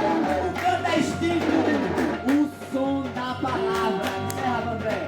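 Live music: electric guitar playing bending, sliding notes over percussion.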